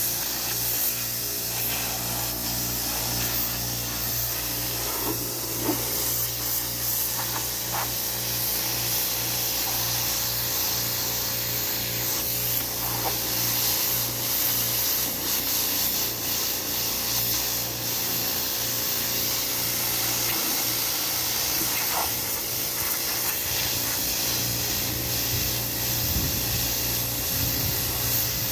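Pressure washer jet spraying water against a boat's fiberglass hull: a steady hiss of spray with a steady low hum underneath, never stopping.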